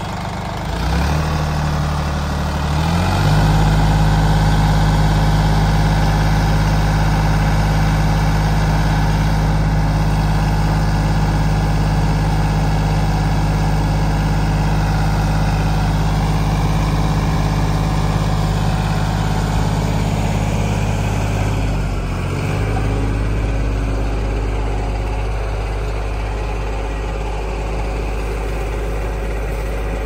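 Sonalika DI 42 RX tractor's diesel engine stepping up from idle to a steady higher speed about three seconds in, working the hydraulics that tip the loaded trolley, then dropping back to idle a little past twenty seconds.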